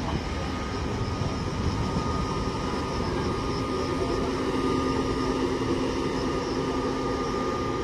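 ÖBB Railjet passenger train hauled by a Taurus electric locomotive rolling through the station: a steady rumble of wheels on track, with a steady electric hum over it that grows stronger about halfway through.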